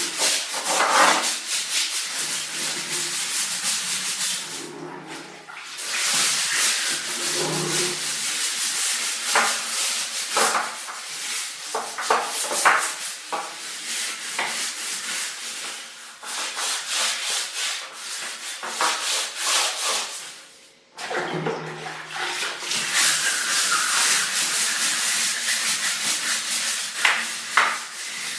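Stiff scrubbing brush scrubbing a bathroom surface in quick back-and-forth strokes, a dense scratchy rasp. It stops briefly about 5 seconds in and again about 21 seconds in, then resumes.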